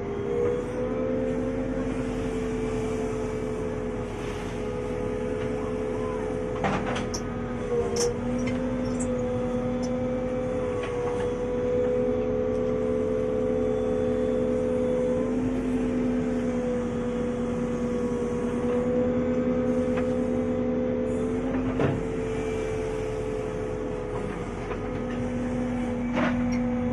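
JCB backhoe loader running steadily with a constant drone, with a few short knocks and clanks.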